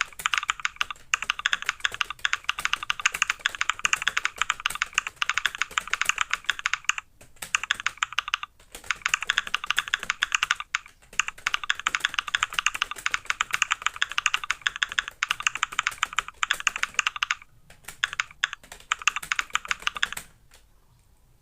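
Fast touch-typing on a computer keyboard, a rapid run of key clicks with a few brief pauses, stopping near the end.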